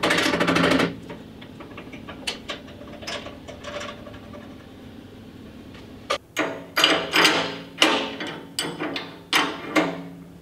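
Metal parts knocking and clinking as a go-kart steering spindle and its bolt are fitted into the frame's bracket. It opens with a fast rattle about a second long, and a run of sharp metallic clanks comes in the last few seconds.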